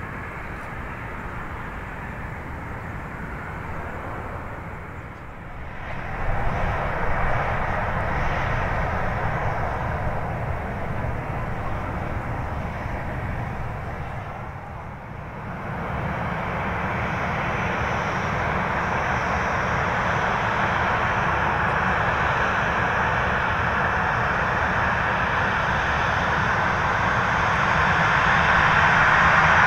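Twin CFM56-7B24 turbofans of a Boeing 737-800 running and growing steadily louder, a spool-up toward takeoff thrust. The sound dips briefly twice and is loudest near the end.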